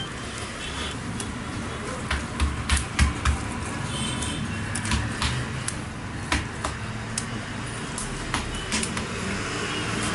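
Irregular clicks and knocks from a metal tray of vegetable filling and the work table as the filling is portioned onto puff-pastry squares, with a few heavier low thumps about two to three seconds in, over a steady background noise.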